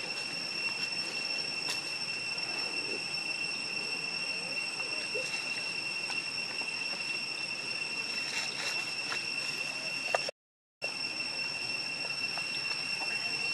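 Steady high-pitched insect drone: one unbroken tone with overtones, over faint rustles and clicks. The sound drops out completely for about half a second around ten seconds in.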